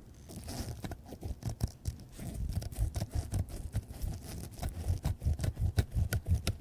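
Rapid, irregular small clicks and handling noise from a pocket watch's stem and keyless winding works as the remaining power in the mainspring is let down.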